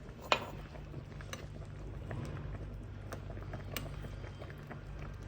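Bean paste soup simmering in a pot over a steady low hum, with a few sharp clicks and taps, the loudest about a third of a second in.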